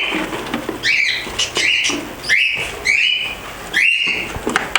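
Small pet parrots calling repeatedly: a string of short calls, each rising in pitch and then holding, about five or six in quick succession.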